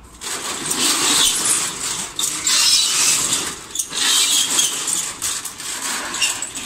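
Corrugated metal roller shutter being pushed up by hand, its slats rattling and clattering as it rolls up, in a few loud surges.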